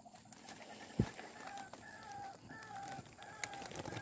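White-breasted waterhen calls, a string of short clucking notes repeated a few times a second, played from a caller set out to lure the birds. A single sharp knock sounds about a second in.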